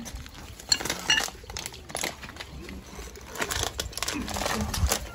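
Irregular rustling and crackling broken by sharp clicks and knocks.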